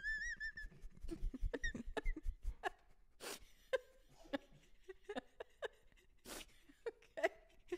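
Stifled, breathless laughter: a high squeaky giggle that stops under a second in, then scattered gasps, sniffs and short squeaks.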